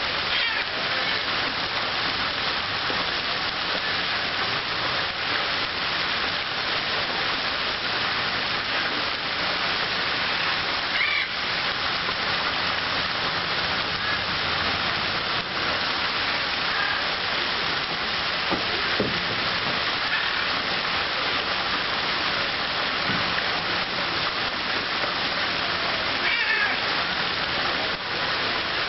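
Multi-jet pond fountain running: arcs of water spraying and splashing back onto the pond, a steady, even rush of falling water.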